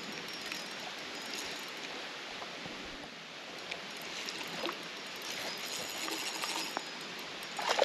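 Rain falling steadily on a shallow creek along with its running water: an even hiss with a few faint ticks.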